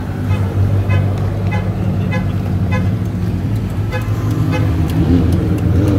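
Pagani Huayra's twin-turbo V12 running at low speed as the car creeps past, a steady deep drone. A short, sharp beep repeats about every 0.6 s.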